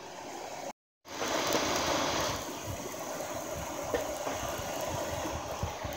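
A hairdryer forcing air through a pipe into a charcoal bucket furnace melting aluminium: a steady rush of air with a few faint clicks. It is loudest for about a second just after it begins, then settles.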